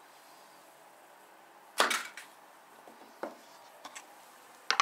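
A few sharp knocks and taps of a cardboard packaging box and its contents being handled on a wooden table. The loudest knock comes about two seconds in, with fainter taps after it and another sharp knock near the end.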